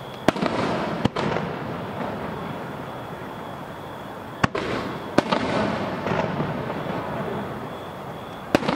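Aerial fireworks shells bursting: five sharp bangs, two close together about a second in, two more around the middle, and one near the end, each followed by a noisy tail.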